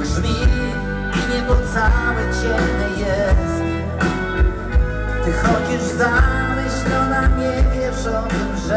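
Live rock band playing through a concert PA: a steady drum beat about twice a second under bass, electric guitars and keyboards, with a lead melody line gliding over the top.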